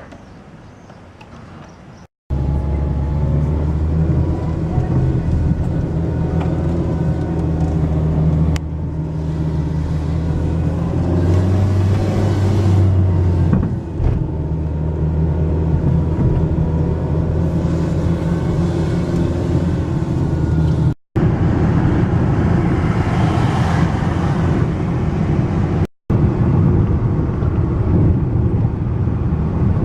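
Car driving: a steady low engine hum with road noise. It starts abruptly about two seconds in and runs on across several hard edits.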